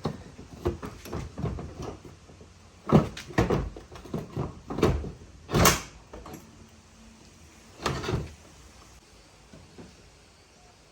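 Knocks and clunks of an Audi Q7 headlight unit being handled and pushed back into its place in the car body, a series of separate hard knocks, the loudest about halfway through and another near 8 seconds in.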